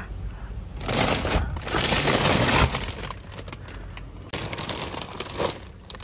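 Plastic packaging crinkling and crackling as it is handled, in two loud stretches: one starting about a second in, the other around four and a half seconds in.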